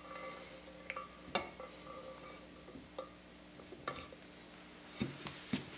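Light metallic clinks and taps, about half a dozen spread out, some ringing briefly, as a two-stroke triple's crankshaft with its main bearings is lowered and settled into the aluminium lower crankcase half.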